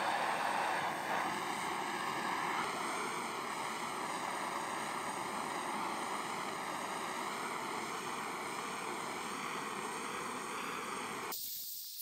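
Hand-held butane cartridge torch burning steadily, its flame jet hissing with a faint wavering whistle as it chars the top of a wooden beehive box. About eleven seconds in the sound drops suddenly to a thinner, higher hiss.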